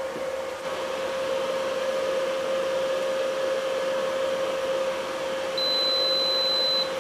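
A steady mechanical hum with one strong steady pitch. A high thin whine joins it for the last second or so, then the whole sound cuts off suddenly.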